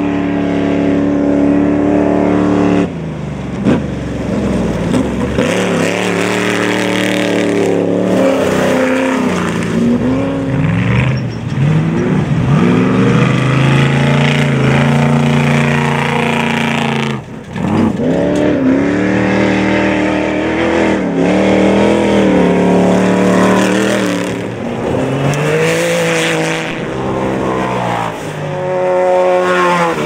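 Off-road desert race trucks' engines revving hard as they power past one after another, the engine note climbing and falling again and again with the throttle, over the rush of tyres on dirt.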